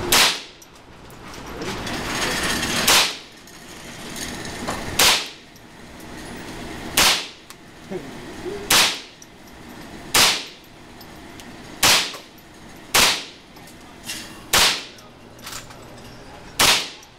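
A .22 semi-automatic rifle firing single shots, about ten in all, each crack ringing briefly off the walls of an indoor range. The shots come about three seconds apart at first and quicken to one to two seconds apart.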